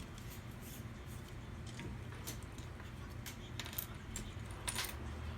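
Scattered light clicks and small metallic taps of hard parts being handled, irregular and a few to the second, over a steady low hum.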